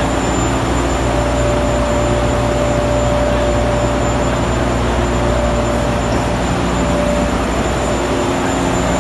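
Steady factory machinery noise from a conveyor line: a dense whir with a held mid-pitched whine and a low hum.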